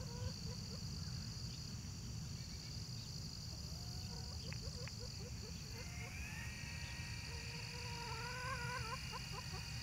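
Hens clucking softly in a run of short calls, then one longer wavering call about eight seconds in, over a steady high-pitched hum of insects.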